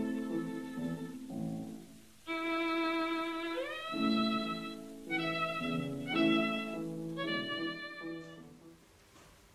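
Soundtrack music of bowed strings, led by a violin, playing slow held notes with vibrato. One note slides upward about three and a half seconds in, and the music fades away near the end.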